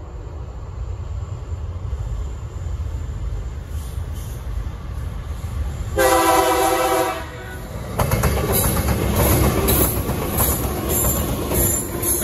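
Diesel locomotives of a TasRail freight train approaching with a steady low engine rumble, sounding the horn in one blast of just over a second about six seconds in, a warning for the level crossing. From about eight seconds the locomotives pass close by, their engines and wheels loud on the rails.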